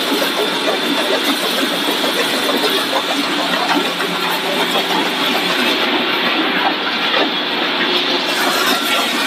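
Corn puff snack extrusion line machinery running: a loud, steady mechanical din with a constant hum and a high steady tone over it.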